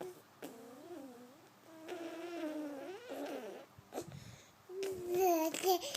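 A toddler babbling in drawn-out, sing-song vocal sounds, in two stretches with a short pause between them; the second stretch is louder.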